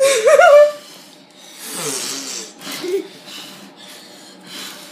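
A short wavering laugh, then about four hard breaths blowing out at trick relighting birthday candles that keep coming back alight, roughly one puff every second.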